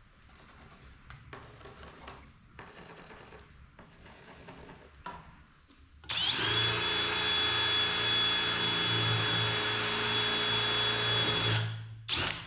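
Faint rubbing strokes about once a second, then an electric power tool's motor starts with a short rising whine, runs steadily for about five seconds and stops.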